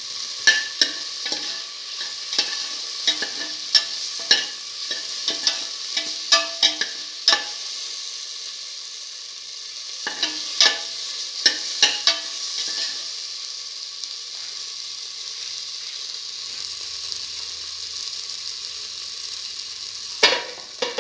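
Shallots, garlic and tomato pieces sizzling in hot oil in a steel pan, stirred with a utensil that clicks and scrapes against the pan in quick runs through the first part. After that a steady sizzle, then a loud knock against the pan near the end.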